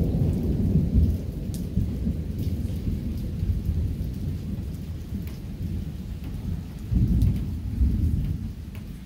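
Thunder rumbling low and slowly dying away, with a fresh swell of rumble about seven seconds in. Faint scattered raindrop ticks sound over it.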